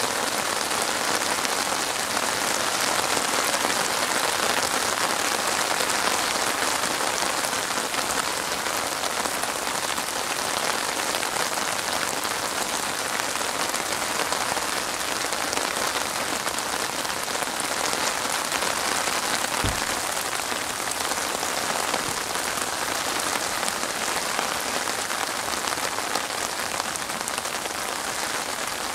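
Steady rain falling on open water: an even, unbroken hiss of countless drops splashing on the surface. A single brief low bump about two-thirds of the way in.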